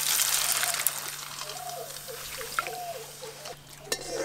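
Raw-potato papad frying in hot refined oil in an aluminium karai: a loud sizzle that drops to a quieter, steady sizzle about a second in.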